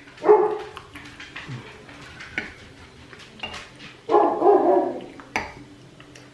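A dog barking twice, about four seconds apart, the second bark drawn out to about a second, with sharp clicks of utensils or dishes between.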